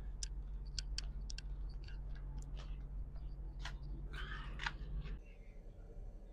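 Scattered light clicks and knocks of kitchen utensils and containers being handled, over a steady low hum that cuts off about five seconds in.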